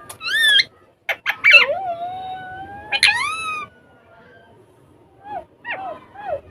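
Indian ringneck parrots calling with pitched, gliding whistles and squawks. A long drawn-out call about a second and a half in ends in a sharp rising squawk, and there are a few short falling chirps near the end.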